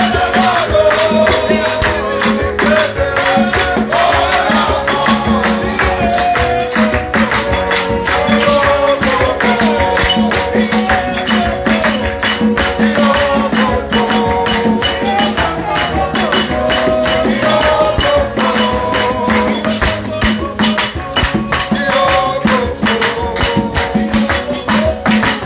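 Worship music: a fast, even percussion rhythm under a wavering melodic line and a pulsing bass.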